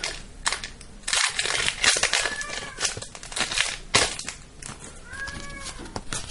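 Foil booster-pack wrapper crinkling and crackling as it is torn open, with irregular sharp crackles, loudest about one, two and four seconds in, then trading cards being handled.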